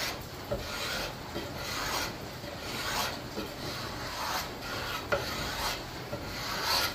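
A homemade steel scraper with a square 90-degree edge drawn repeatedly along a wooden axe handle, about two strokes a second, stripping off the factory varnish.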